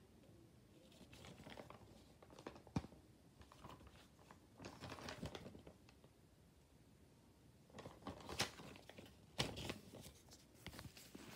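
Faint rustling and crinkling of lined notebook paper being handled, broken by a few sharp clicks or knocks, the loudest about nine and a half seconds in.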